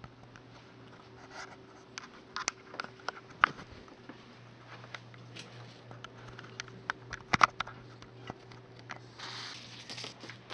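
Scattered soft clicks, taps and rustles as someone creeps about and handles things in a small dark room. A sharper knock comes about seven seconds in and a burst of rustling near the end, all over a steady low hum.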